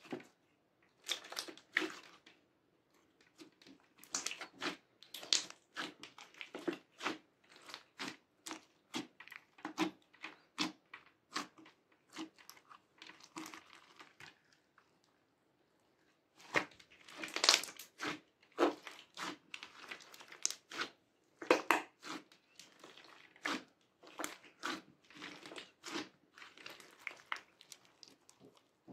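Orange slime with small beads squeezed, folded and stretched by hand, giving irregular wet, sticky clicks and crackles. They pause briefly past the middle, then come back louder.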